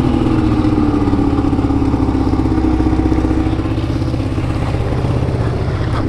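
Yamaha VK 540 snowmobile's two-stroke twin engine running at a steady pitch.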